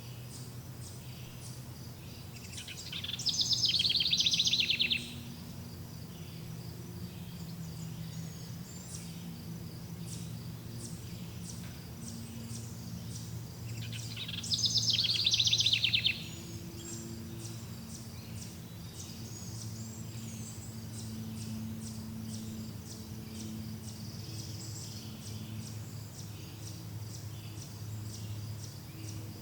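Forest ambience: a bird sings a loud, rapidly trilled phrase of about two seconds twice, roughly ten seconds apart. Underneath are steady insect chirping, fainter bird calls and a low steady hum.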